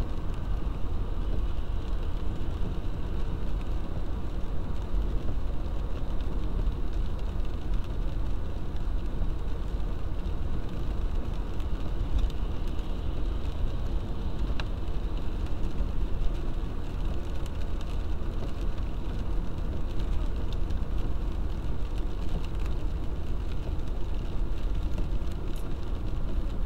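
Steady car road noise heard from inside the cabin: engine and tyres running on a wet road.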